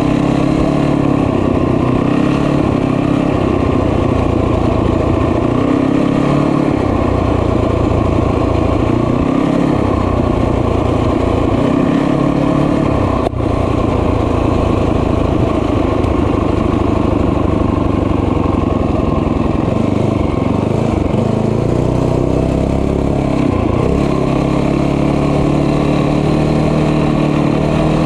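Small motorbike engine running steadily under way, with one brief drop in sound about halfway through. Near the end its pitch dips and rises a few times as the throttle changes.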